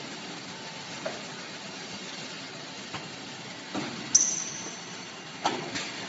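Machinery of an automatic balancing-ring production line running with a steady mechanical hiss and hum. Scattered clicks and knocks come from the stations, and a sharp high-pitched sound about four seconds in fades over half a second.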